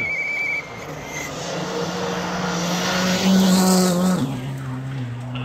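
Rally car engine at full speed on a snow stage, growing louder as it approaches and loudest as it passes about three and a half seconds in, its engine note dropping to a lower pitch just after.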